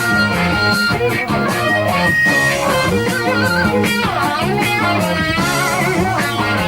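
Hard rock band playing an instrumental passage: electric lead guitar lines with bent, wavering notes over bass guitar and drums.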